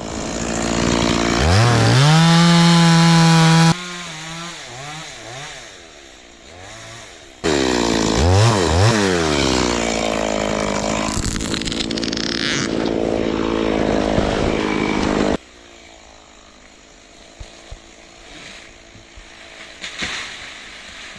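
Stihl chainsaw revving up to full throttle and holding it, falling back to a wavering idle, then revving hard again and running at high speed for several seconds while cutting a branch, before the sound drops away suddenly.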